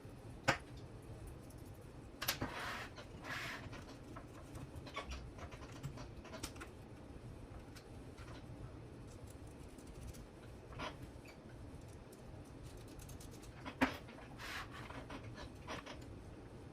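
Hands handling small parts and wiring: scattered sharp clicks, twice loud, and short bursts of rustling and scratching.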